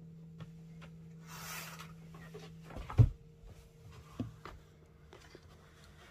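A faint steady hum, a brief rustle, then a single loud thump about halfway through, like something being shut. A few lighter knocks and handling noises follow.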